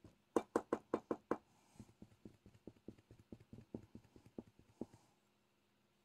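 Diamond painting drill pen tapping resin drills down onto the canvas: a quick run of about six sharper taps about half a second in, then a long string of softer taps, about four or five a second.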